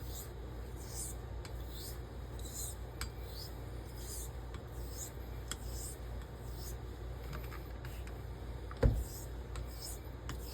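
Carbon steel straight razor being stroked back and forth on a wet blue coticule whetstone, an even run of gritty swishes about one per second. A single sharp thump about nine seconds in.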